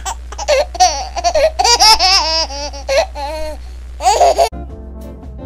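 High-pitched laughter in quick, loud bursts, stopping about four and a half seconds in. Quieter brass music follows.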